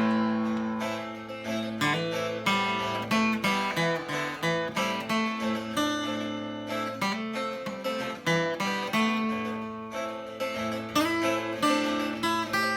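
Acoustic guitar playing an instrumental passage between verses of a folk ballad, picked and strummed chords with no singing.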